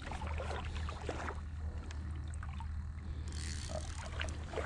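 Shallow water sloshing and splashing around a wader's legs, over a steady low rumble of wind on the microphone, with scattered small clicks and knocks.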